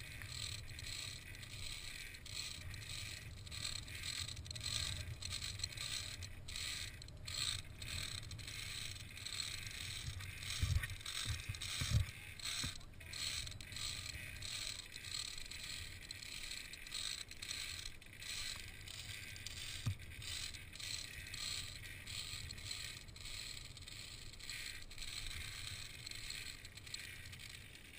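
Climbing gear and footsteps on a steel-grate suspension bridge: irregular metallic clicks and scrapes about once or twice a second, as carabiners and hands run along the steel cables, with two heavier thumps around the middle. Wind rumbles on the helmet camera throughout.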